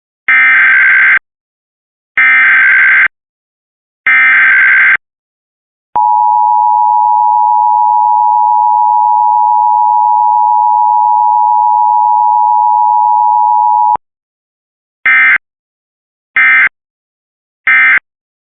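Emergency Alert System alert tones. Three bursts of SAME digital header data, about a second each, come first. Then the two-tone attention signal (853 and 960 Hz) holds steady for about eight seconds, followed by three short end-of-message data bursts.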